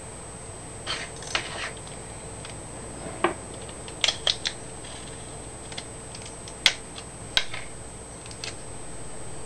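Hands handling a roll of clear sticky tape and a small paper-and-wire dart: scattered sharp clicks, taps and short crinkles, the clearest cluster about four seconds in.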